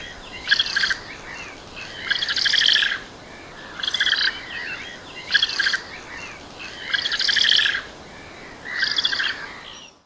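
Eurasian spoonbill calling: six short, rapidly pulsed rattling calls, spaced about a second or two apart, over a steady hiss.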